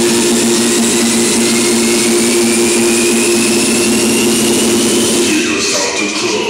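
Build-up of an electronic dance track: a rising whooshing noise sweep over a held low two-note drone, which falls away about five and a half seconds in.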